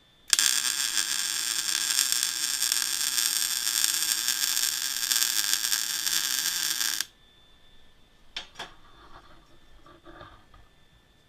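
Electric welding arc crackling steadily for about seven seconds, switching on and off abruptly. Two sharp clicks follow, then faint handling of metal.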